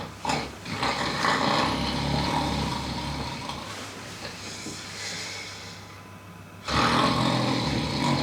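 A person snoring: two long snores, the first starting about a second in and fading out after about four seconds, the second starting near seven seconds, with a quieter breath between them.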